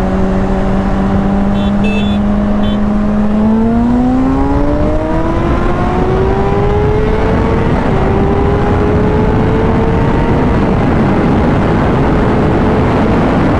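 Honda CBR600RR inline-four sport-bike engine under hard acceleration. It holds steady revs, then climbs in pitch from about three and a half seconds in, shifts up with a brief drop in pitch about eight seconds in, and climbs again. Wind rushes over the microphone at highway speed throughout.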